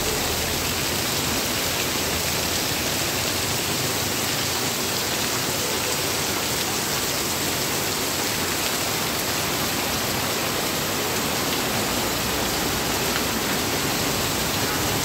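Heavy downpour of rain pelting a wet paved street, a steady even hiss.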